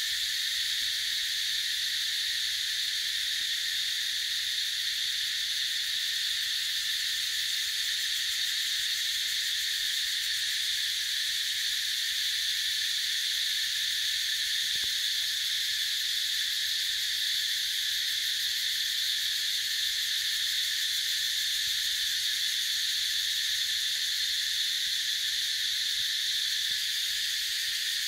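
Steady, high-pitched drone of a chorus of insects, unbroken throughout.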